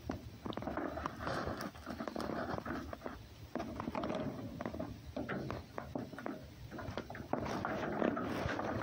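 An animal moving about close by on a straw-covered floor: irregular rustling, scuffing and light pattering steps, with scattered small clicks.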